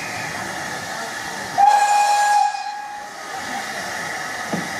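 Steam tank locomotive hissing steadily with escaping steam, and about one and a half seconds in a single steady steam-whistle blast of about a second that fades away, after which the hiss continues.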